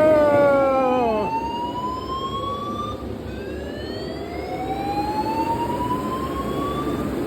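Building fire alarm sounding a repeating slow rising sweep tone: each sweep climbs for a few seconds, drops back and starts again, over a steady low rushing noise. A man shouts "Yo!" near the start.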